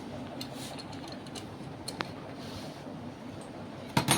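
Metal parts and tools handled during an engine nozzle repair: a few light metallic clicks, then a sharp clink near the end, over a steady low hum.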